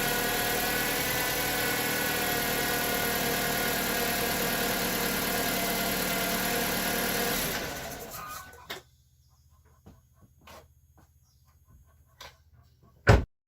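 Chevrolet Aveo's 1.4-litre F14D4 four-cylinder petrol engine idling steadily after a cold start, then dying away about eight seconds in; the owner hears some noise left but much quieter than the former start-up rattle of the cam phasers, after a new oil pressure valve. A single sharp knock comes near the end.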